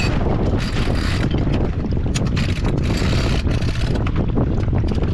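Wind buffeting the microphone aboard a J24 sailboat under sail: a constant low rumble, with several stretches of hiss from water rushing along the hull.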